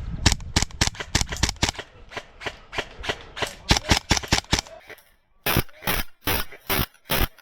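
Airsoft guns firing: a rapid run of sharp shots, several a second, then after a brief pause about six louder, evenly spaced shots near the end.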